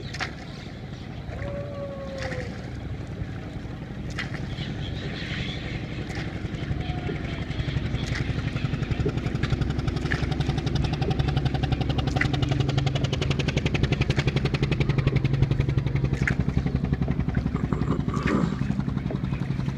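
Motorboat engine running with a steady, rapid pulse, getting louder through the middle of the stretch.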